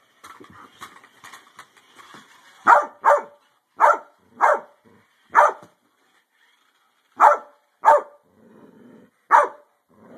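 Dog barking at a remote-controlled toy car: eight loud, sharp barks beginning about two and a half seconds in, several coming in quick pairs.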